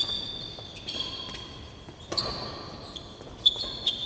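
Badminton rally: sharp racket strikes on the shuttlecock about once a second, with sneakers squeaking on the court floor.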